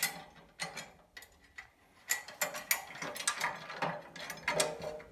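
Steel bracket hardware clicking and rattling as a nut is run onto a bolt to fasten a square plate to a steering-rack cross member. There are scattered clicks at first, then a dense run of rapid clicks from about two seconds in.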